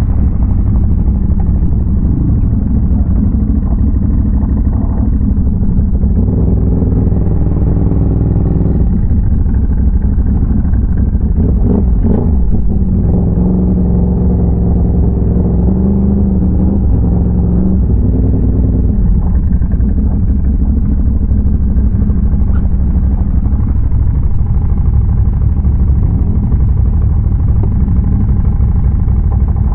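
Can-Am Renegade ATV's big-bore V-twin engine running while riding, its pitch rising and falling with the throttle, with a brief knock about twelve seconds in.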